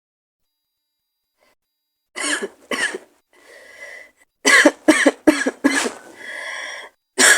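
A woman's raspy, wet-sounding cold cough, starting about two seconds in: two coughs, a wheezy breath in, a run of four quick coughs, another breath in, then more coughs near the end.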